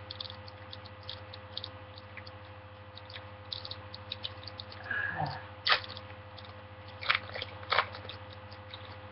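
Crinkling and crackling of a booster pack's foil wrapper being handled and torn open, with a few louder sharp crackles in the second half, over a steady low electrical hum.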